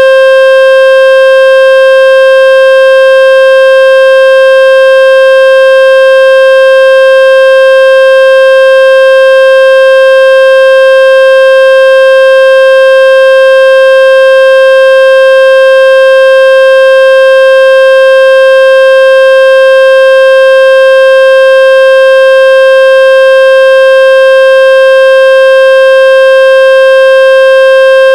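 Loud, steady electronic test tone from a speaker-cleaning (water-ejection) app, held at one unchanging mid pitch with a buzzy edge from strong overtones.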